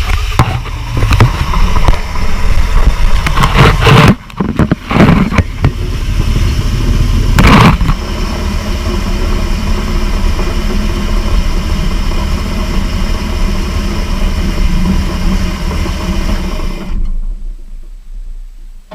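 Ford 390 V8 engine running at idle, revved briefly about three times in the first eight seconds, then shut off near the end.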